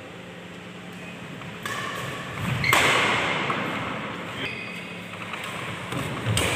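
Badminton doubles rally: rackets striking the shuttlecock in a hall that echoes, with a loud hit about two and a half seconds in and another near the end.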